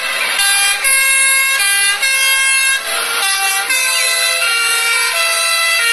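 Two-tone fire-engine siren, the European high-low horn, sounding continuously as the fire trucks drive past, its notes alternating back and forth.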